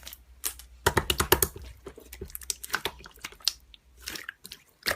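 Typing: a quick, irregular run of sharp clicks and taps that stops about four seconds in.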